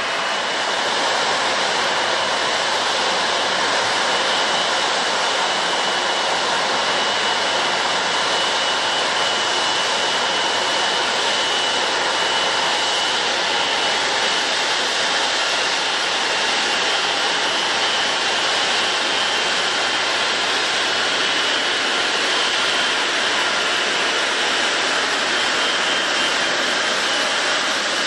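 Airliner jet engines running steadily: a broad, even rush of noise with a steady high whine over it.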